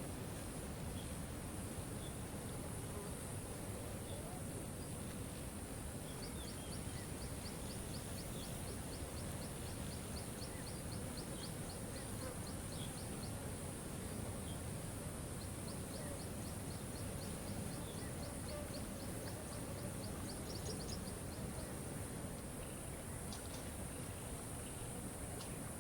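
Waterfall rushing steadily, with a steady high hiss above it. Over it, a rapid high ticking call, about four ticks a second, runs for several seconds twice.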